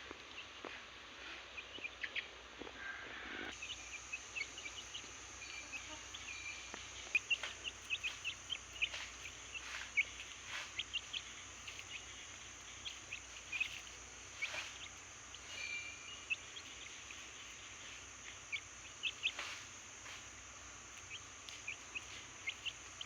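Baby chicks peeping: many short, high chirps coming irregularly, some overlapping, over a steady high-pitched background noise.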